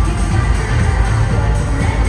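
Loud live pop music over an arena sound system, with a heavy, pulsing bass beat.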